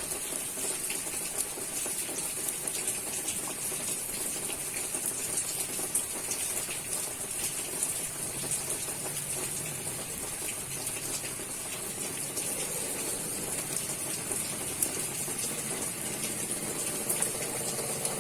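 Steady rain falling: an even, hissing wash with many small, sharper drop hits scattered through it.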